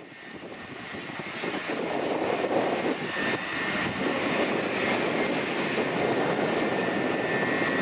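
Airbus A330 airliner's jet engines running: a steady rushing noise with a thin high whine over it, building up over the first couple of seconds and then holding steady.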